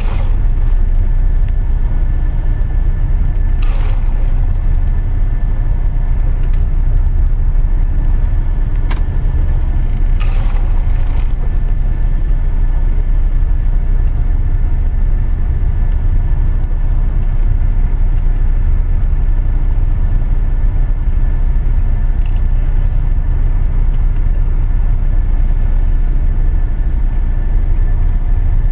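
Steady low rumble of a dive boat's engines and hull heard inside a cabin, with a faint steady whine above it. Twice, at about four and ten seconds in, a brief rushing wash as sea water surges over the porthole.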